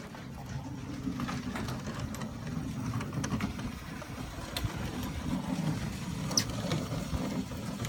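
Home-built dark ride car running along its plywood track under its own drive, a steady low hum with scattered light clicks.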